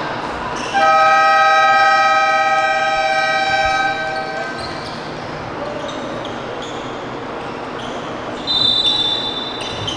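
Gym scoreboard buzzer sounding for about three and a half seconds as the clock runs out. Near the end comes a short, high referee's whistle, over a gym background with a ball bouncing.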